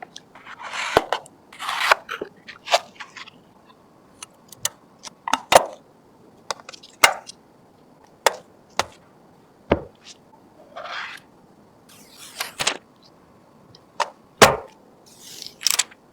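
Computer parts being handled and fitted during a PC build: a dozen or more sharp clicks and snaps at irregular intervals, with short rustling and sliding sounds between them.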